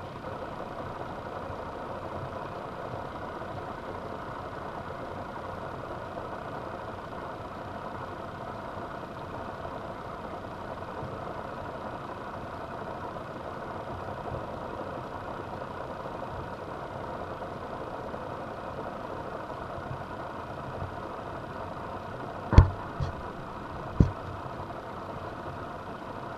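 Steady background hum of room noise, even and unchanging, with two or three sharp clicks near the end.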